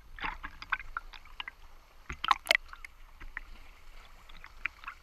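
Water sounds close to the microphone: a string of irregular sharp clicks and crackles, loudest about two and a half seconds in, over a faint low rumble.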